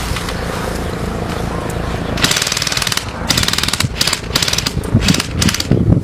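Several bursts of rapid automatic fire from war-game guns, each lasting a fraction of a second to nearly a second, in the middle of the stretch. A low rumble rises near the end.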